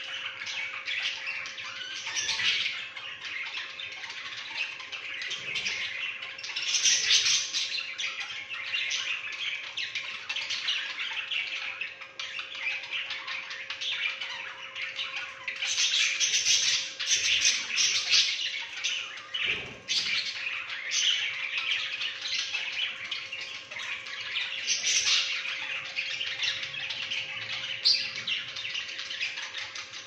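A flock of budgerigars chattering and chirping without pause, with sharp squawks mixed in. The chatter swells louder several times.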